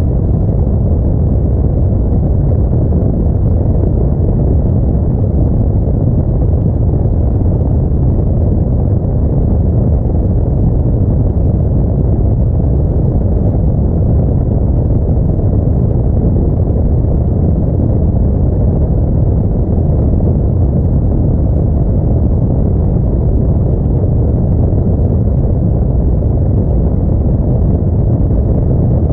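Steady low rumble of an Audi A4 driving, its engine and tyre noise even and unchanging throughout.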